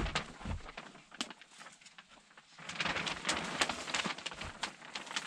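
Polyethylene vapor-barrier sheet crinkling and rustling as it is handled and lifted up against the wall, dense crackling from about three seconds in, after a couple of soft knocks in the first half second.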